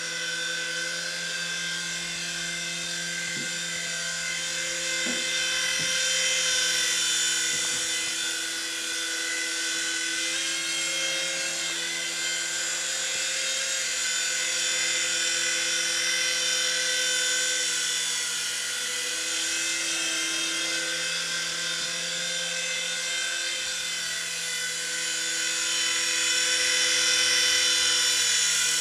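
Jamara EC135 DRF, a small electric indoor RC helicopter, flying: the steady whine of its electric motors and the whir of its rotor blades, the pitch shifting slightly now and then and the sound growing a little louder near the end.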